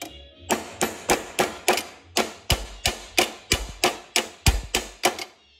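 Snap-on linear stretch hammer, rounded-face, striking a sheet-metal flange held in wire edge pliers: about seventeen quick, even blows, roughly three a second, each ringing briefly. The flange is being staked over a 3/16 wire to form a wire edge.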